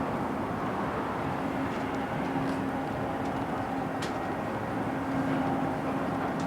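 An engine running steadily, with a faint hum that comes and goes.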